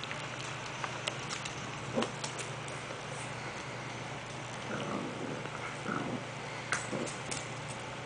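Yorkshire terrier puppies giving a few faint short squeaks and whimpers about halfway through, with scattered light clicks of claws on a tile floor over a steady low hum.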